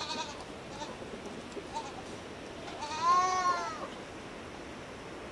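A goat bleating once, a drawn-out call of about a second that rises and falls in pitch, about three seconds in. A shorter, fainter call comes at the start.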